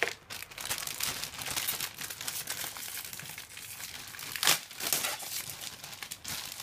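Clear plastic bags holding plastic model-kit parts runners crinkling as they are handled and lifted out of the box, with one sharper, louder crackle about four and a half seconds in.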